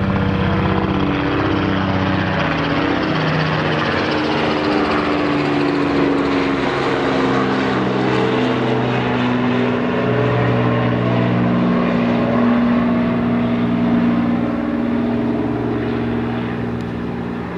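Small helicopter flying past: a steady rotor and engine drone with rapid blade beating, its pitch sliding lower as it goes by.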